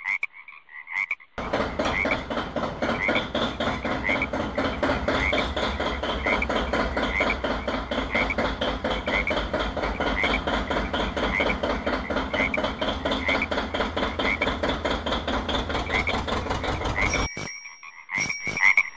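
Frogs croaking in a steady, repeating rhythm. For most of the clip a heavy vehicle engine runs loudly over them with a fast thudding beat, then cuts off suddenly near the end. A bicycle bell rings briefly at the close.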